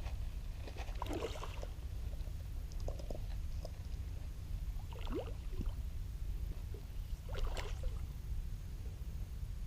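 Water lapping and knocking against a small fishing skiff's hull over a steady low rumble, with a few scattered splashy knocks and a short rising squeak about five seconds in.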